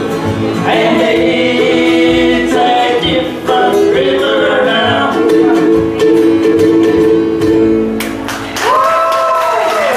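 Bluegrass band singing the final lines in close harmony over acoustic guitar, upright bass and plucked string accompaniment, closing on a long held harmony chord near the end that bends down slightly as it ends.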